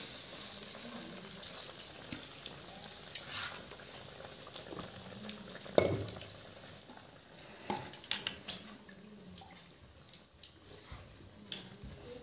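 Bread pakoras (batter-coated bread slices) sizzling as they deep-fry in hot oil in a steel kadhai: a steady crackling hiss that fades in the later seconds. A single sharp knock about six seconds in.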